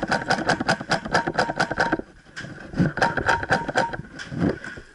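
PolarStar HPA-driven F2000 airsoft rifle firing fast strings of semi-auto shots, about nine a second: one string of about two seconds, a brief pause, then a shorter string of about a second.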